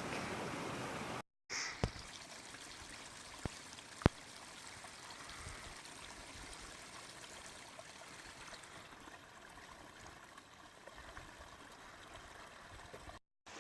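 Stream water running steadily, with a few sharp clicks about two and four seconds in. The sound drops out briefly twice.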